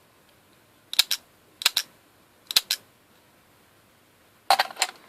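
Sharp plastic clicks from handling the DX Gabutyra de Carnival toy and its Zyudenchi battery pieces. The clicks come in three quick pairs, then a burst of several clicks near the end.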